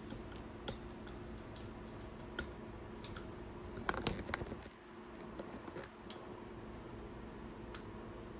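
Scattered small clicks and taps of hands working on an extension cord and its plug, with a short cluster of sharper clicks about four seconds in.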